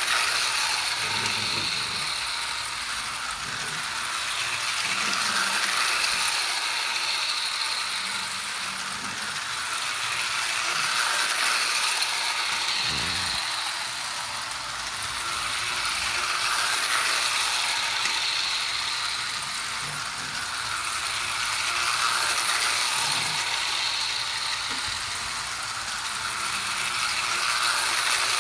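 Old toy train running around a small circle of track, a rattling mechanical clatter of wheels and gearing that swells and fades about every five and a half seconds as it laps past.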